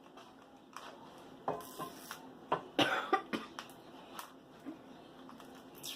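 Plastic toy packaging being handled: a scatter of short clicks and rustles, busiest about halfway through.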